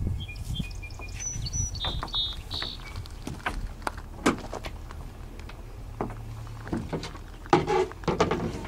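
Hands working a rope halyard on a small wooden sailboat: scattered light knocks and rustles over a steady low rumble of wind. A few short high chirps come in the first three seconds.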